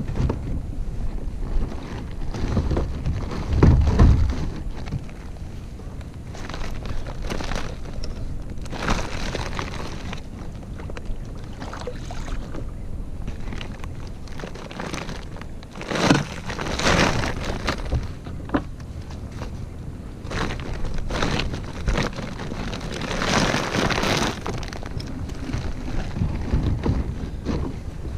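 Wind buffeting a small action-camera microphone, a steady low rumble, with several louder bursts of rustling and knocking as a fish and fishing gear are handled in a kayak; the loudest bump comes about four seconds in.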